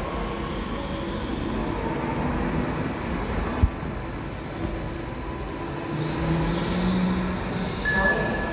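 Go-karts running around an indoor track: a steady motor whine over the noise of the karts, with a hum that rises about six seconds in and a single sharp click about three and a half seconds in.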